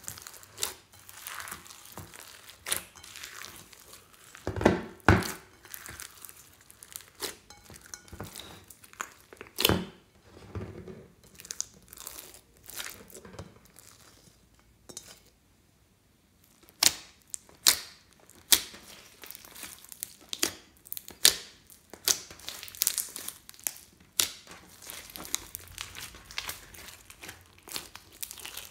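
Clear slime loaded with foam beads, glitter and sequins being squeezed, stretched and poked by hand, giving irregular crackles and clicks, with a short quiet pause about halfway through.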